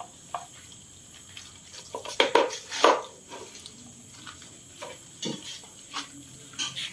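Several dogs eating from plastic bowls on a concrete floor, the bowls knocking and scraping on the concrete as they eat. There are a few sharp clatters, the loudest between two and three seconds in.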